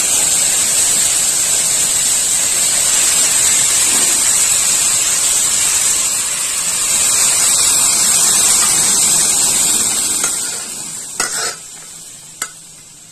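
Loud sizzling as boiled rice and lentils hit hot mustard oil and spices in an aluminium karai. It holds steady for about ten seconds, then dies down, with a few clinks of the metal spatula against the pan near the end.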